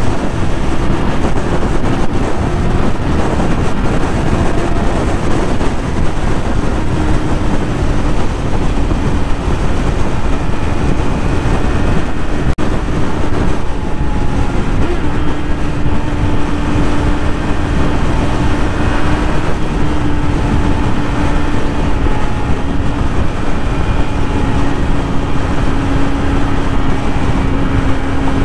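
2020 Yamaha YZF-R6's inline-four engine holding a steady high note while riding at speed, its pitch sinking slightly over time, under heavy wind rush on the microphone.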